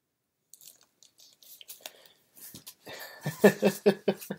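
Faint rustling and clicks of small items being handled, then from about three seconds in a man laughing close to the microphone, a quick run of about five short "ha"s a second.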